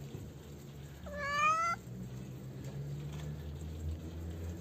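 A cat meowing once, about a second in: a single short call rising slightly in pitch. A low steady hum runs underneath.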